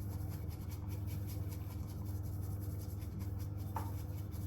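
Matcha and milk being whisked in a bowl to build a foam: fast, even, scratchy strokes of the whisk.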